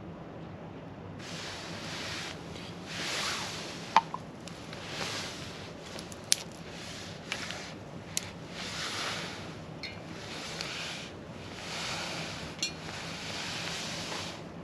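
Small wood fire burning in a SOTO Tetra mini fire pit: repeated swells of hiss about a second long, with a few sharp pops and snaps, the loudest about four seconds in.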